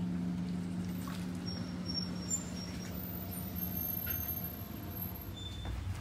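A steady low hum, with a few faint, short high chirps and light clicks over it.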